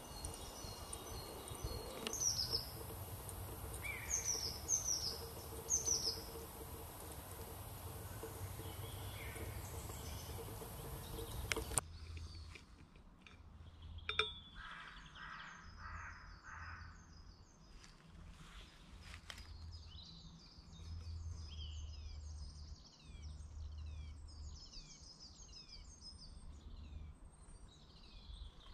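Woodland birdsong: several birds giving short, repeated downward-sweeping chirps, with a steady low rumble underneath. About twelve seconds in the background hiss drops away abruptly and the chirps come thicker.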